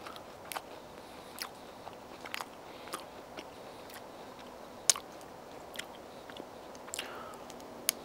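Scattered sharp clicks and small cracks of a nut shell being broken apart by fingers and a knife tip. The loudest snap comes about five seconds in, and another near the end.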